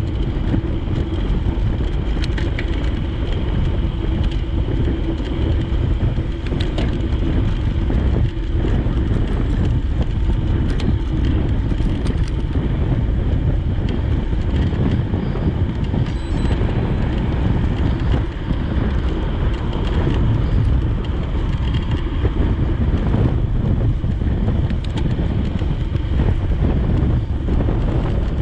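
Steady wind noise rushing over the microphone of a moving bicycle, a constant low rumble with no breaks.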